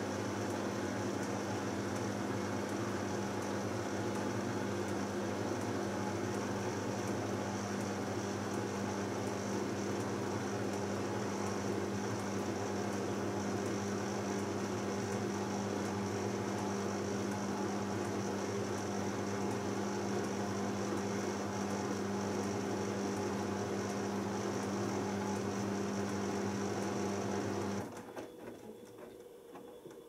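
Beko WMB81445L front-loading washing machine spinning its drum at speed at the end of the main wash, a steady motor hum. Near the end the motor cuts out suddenly and the drum coasts down.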